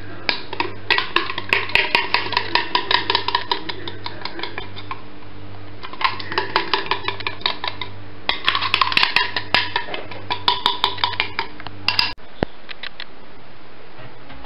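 A kitchen utensil scraping and knocking against a mixing bowl as cake batter is scraped out into an aluminium tube pan: runs of quick clicks, about four or five a second, with a short pause about five seconds in. The clatter stops suddenly about twelve seconds in.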